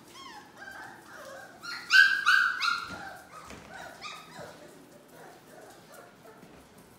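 Four-week-old Labrador Retriever puppies yipping while they play-fight over toys. The calls are short and high-pitched, with a loud burst of about three yips around two seconds in, and they trail off after about four seconds.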